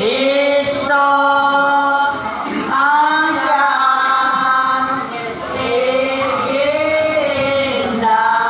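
A group of voices singing a gozos, a Filipino devotional hymn to a saint, in long drawn-out notes that slide slowly from one pitch to the next.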